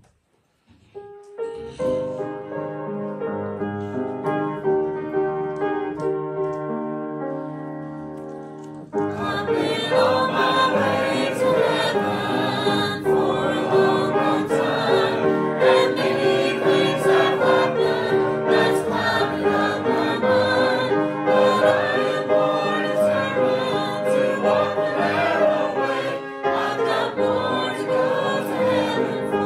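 Gospel song: an instrumental introduction of sustained notes, then about nine seconds in the music jumps louder and fuller as voices start singing over the accompaniment.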